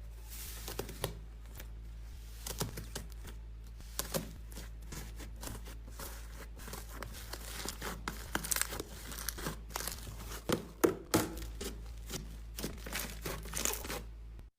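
Slime being squeezed and worked by hand, giving irregular crackling and popping sounds, with a few louder pops near the end, over a steady low hum.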